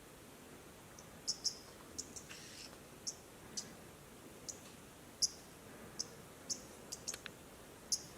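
Quiet bushveld ambience with short, high chirps at irregular intervals, about two a second.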